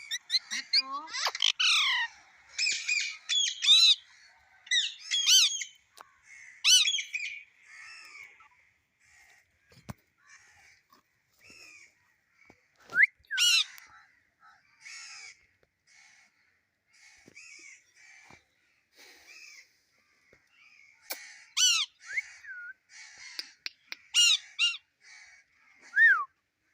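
Pet parrot squawking and chattering in loud sweeping calls, in clusters near the start, about halfway through and again near the end, with softer chatter in between.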